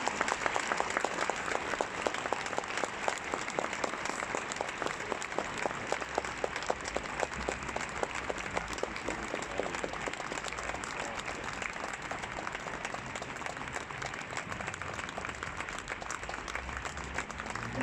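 Audience applauding: many hands clapping in a dense, even patter that slowly fades.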